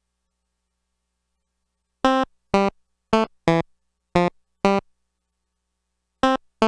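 Arturia MicroBrute analog synthesizer playing short, clipped notes at varying pitches. It starts about two seconds in, with eight notes in an uneven rhythm and a gap of over a second before the last two.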